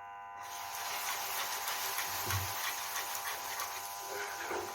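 Hot, thickened jaggery syrup sizzling in the pan with fine crackles as honey is added, just after the flame is turned off. A soft low thud comes about two seconds in.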